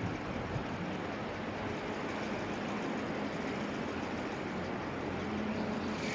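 Steady outdoor rushing noise with a faint low hum underneath.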